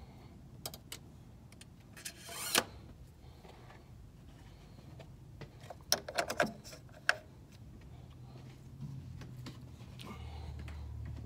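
Light clicks and taps of hand work in a car's engine bay as the dipstick and filler cap are put back after an oil top-up. There is a brief rustle about two seconds in and a cluster of clicks midway.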